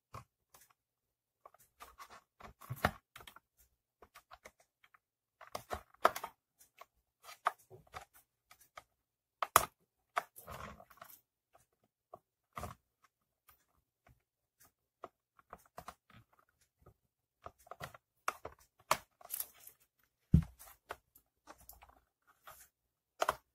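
Plastic handle cover of a HOLT HT-IR steam iron being worked off its snap latches by hand: scattered clicks, creaks and scraping, with a few sharp snaps and a knock as the latches give.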